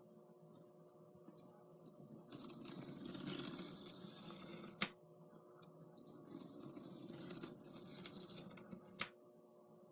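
Craft knife drawn through foam core board, two long scratchy cuts each ending with a sharp click.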